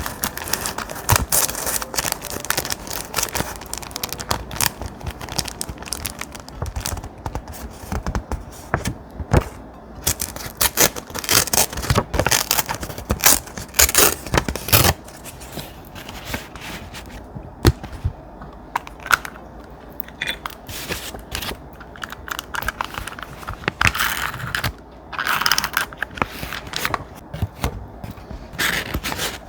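Thick paper and journaling materials handled close to the microphone: irregular rustles, scrapes and light taps.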